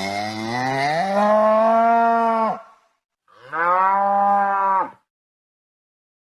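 Cow mooing twice: a long call that rises in pitch and then holds, followed after a short gap by a shorter one.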